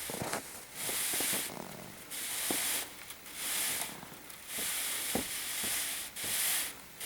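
Wire being sawed back and forth through the roof's snowpack: a rhythmic hiss, about one stroke a second, with faint clicks between strokes.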